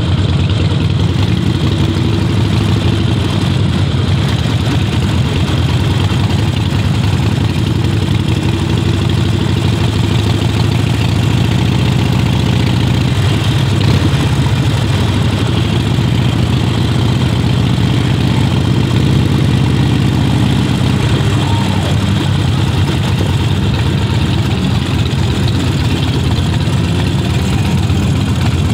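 Motorcycle engine running steadily at low revs, near idle, while the bike crawls along in slow traffic.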